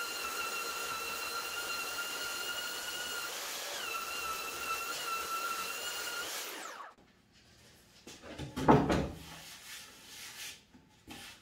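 Handheld electric belt sander running on a pine 2x6 pedestal leg with a steady high whine, smoothing it over freshly glued dowel plugs; its pitch dips briefly a few seconds in under load. About seven seconds in it is switched off and winds down, then a loud thump as it is set down on the wooden table, followed by a few faint knocks.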